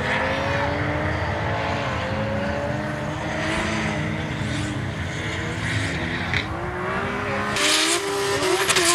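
Drift cars' engines running and revving, their pitch rising and falling. Near the end, loud tyre squeal starts as a car begins to drift.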